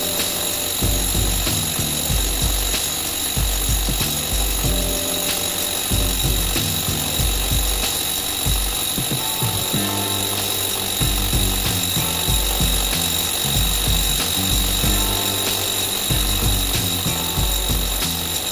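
Background music with a steady beat, over an electric core drill running continuously as its diamond bit grinds a hole through brick.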